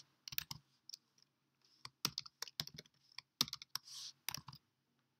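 Typing on a computer keyboard: irregular short runs of key clicks with brief pauses between them.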